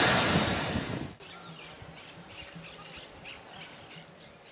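Loud noise from a steam locomotive close by, cut off abruptly about a second in. Then birds chirping quietly, with many short falling chirps.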